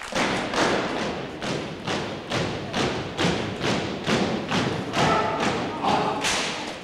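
Armed drill team marching off in step, boots stamping on a gym floor about twice a second, each stamp echoing.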